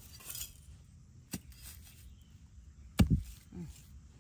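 Two sharp knocks: a light one about a second and a half in, then a much louder one with a dull thud about three seconds in.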